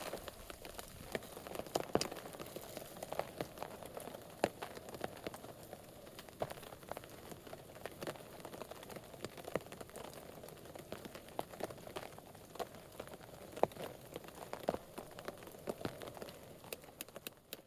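Steady rain falling on a tarp shelter, with many irregular sharp drop hits over a constant hiss.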